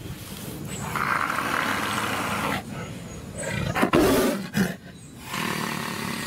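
Tiger roaring in three bursts, a long one, then the loudest about four seconds in, then a shorter one near the end.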